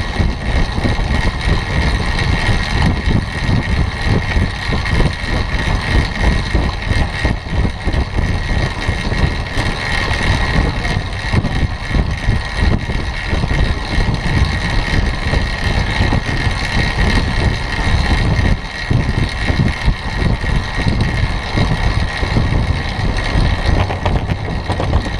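Wind rushing over the microphone of a camera on a track bike riding at speed, with a continuous low rumble of tyres on the velodrome's wooden boards.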